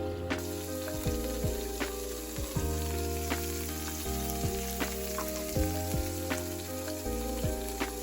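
Food frying in a pan: a steady sizzle that starts just after the beginning, with a few light clicks, over background music.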